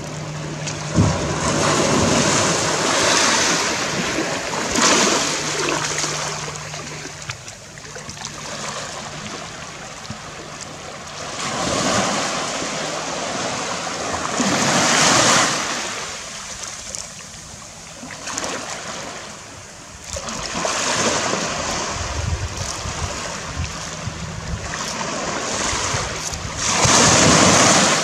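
Waves washing onto the shore, rising and falling in surges every few seconds, with the loudest surge near the end.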